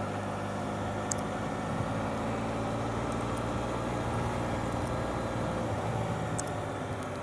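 Vehicle engine running steadily at low revs, an even low hum, with a few faint ticks.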